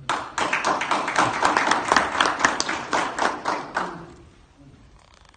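A small audience of delegates applauding, a dense patter of hand claps that starts suddenly and dies away after about four seconds. The applause greets a proposed candidate for chairman, and the chair soon takes it as election by acclamation.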